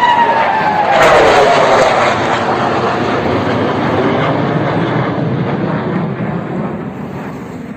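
Sukhoi Su-57 fighter jet flying past. Its high engine whine drops in pitch as it passes, and a loud roar peaks about a second in, then slowly fades away.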